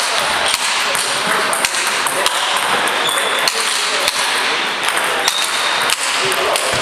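Table tennis ball clicking off hardbat (pimpled rubber, no sponge) bats and the table in a rally: sharp clicks a little over half a second apart, over steady background noise.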